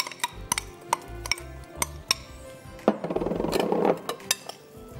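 A spoon clinking and scraping against a mixing bowl as dry cake ingredients are turned over and mixed, with a louder scraping rattle for about a second midway. Background music plays underneath.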